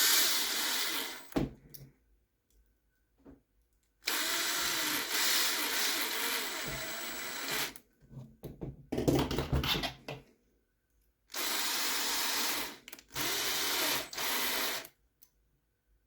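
Small cordless power driver spinning screws into 3D-printed plastic parts. It runs in about five bursts of one to three seconds, with short pauses between them, and its motor pitch wavers as each screw drives in and loads the motor.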